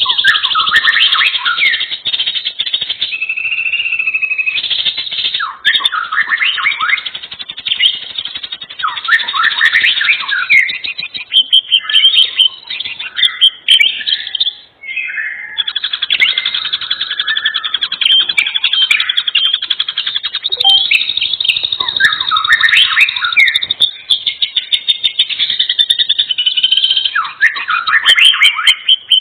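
Birdsong: a dense run of rapid chirps, trills and down-sweeping whistles, with brief pauses twice.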